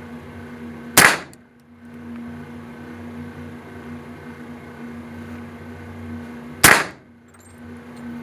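Shotgun fired twice, two loud single shots about six seconds apart.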